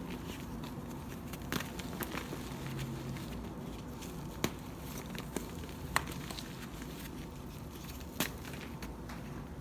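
A few sharp, scattered crackles and snaps of crumbly dyed blocks being crushed, over a steady low hum.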